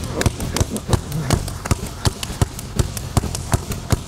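Basketball dribbled fast and hard on a gym floor, about four bounces a second.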